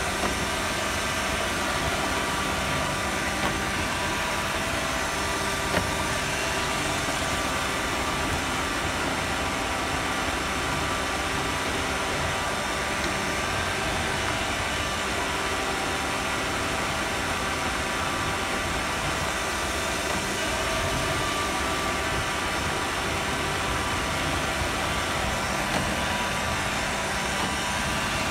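Roomba robot vacuum running, heard from a phone riding on top of it: a steady whir of the motor and brushes with several steady whining tones, and a few faint knocks.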